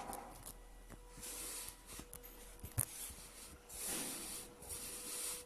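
Kinetic sand being pressed and crumbled by hand: soft, gritty rustling that comes in two patches, with a sharp click near the middle.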